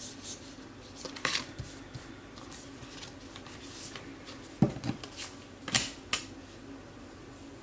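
Tarot cards being handled and laid down on a table: a few short slaps and taps, one about a second in, then two pairs a little after four and a half and around six seconds.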